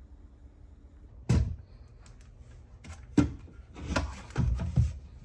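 Objects being handled and set down on a workbench: a sharp thud about a second in, another knock near the middle, then scraping and shuffling, and a last thud at the end.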